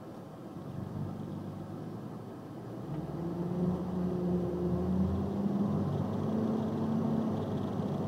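Box truck engine running as the truck drives slowly, heard from inside the cab. About three seconds in, the engine note grows louder and takes on a steady hum that rises slightly in pitch as the truck picks up speed.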